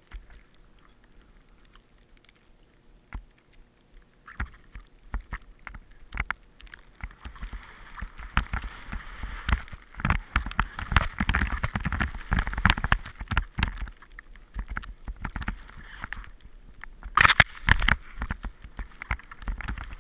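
Skis swishing through deep powder snow in a series of turns, quiet for the first few seconds, then louder and busier, with a couple of loud sharp knocks near the end.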